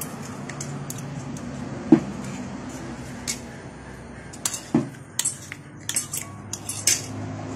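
Metal spoon and fork clinking and scraping on a ceramic plate while eating, over a low steady hum. Sharp clinks stand out about two seconds in and just before five seconds, followed by a quicker run of clinks.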